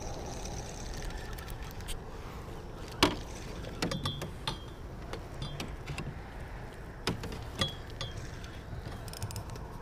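Spinning reel cranked by hand, its gears and bail giving off irregular clicks and ticks while the line is snagged on something underwater. There is one sharp knock about three seconds in.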